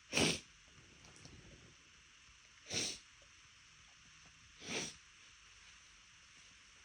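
A woman sneezing three times, about two and a half then two seconds apart. These are short, sharp sneezes that she tries to hold back but that break out anyway, and the first is the loudest.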